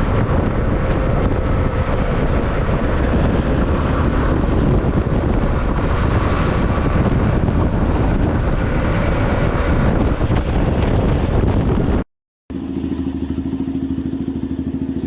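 Yamaha Serow 250's air-cooled single-cylinder engine through an open Pro Pipe T-4 carbon-fibre muffler: a loud, dense running sound for about twelve seconds that cuts off abruptly, then, after a brief gap, the engine idling with a steady, even beat.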